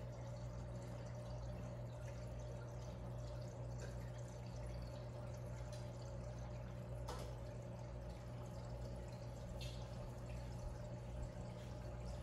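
Reef aquarium's circulation running: a steady low pump hum under a constant trickle and drip of moving water, with a sharp click about seven seconds in.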